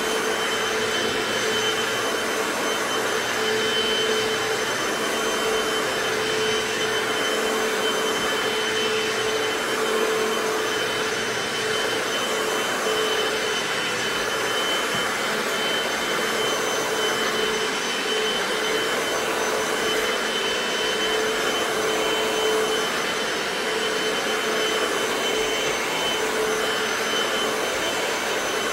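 Hoover FloorMate hard-floor wet cleaner running steadily, its suction motor giving a steady hum with a high whine over the rush of air.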